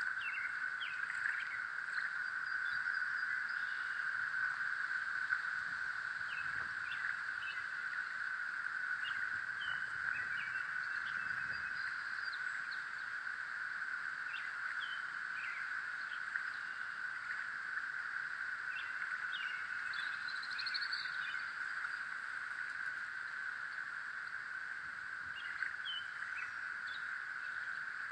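Outdoor ambience with a continuous high-pitched drone and scattered short bird chirps and calls throughout.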